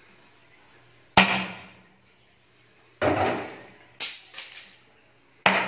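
Knife chopping through a rabbit carcass on a cutting board: four sharp blows spaced one to two seconds apart, the third followed by a couple of lighter knocks.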